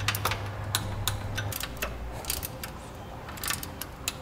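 Torque wrench with socket tightening the U-bolt nuts on a truck's rear axle: irregular sharp metallic clicks and clinks from the wrench's ratchet and the socket on the nuts. A low steady hum stops about a second and a half in.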